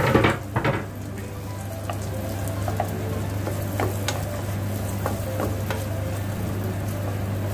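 Diced onion sizzling in butter in a nonstick frying pan, stirred with a wooden spatula, with scattered small crackles through a steady hiss; a short louder burst comes in the first second.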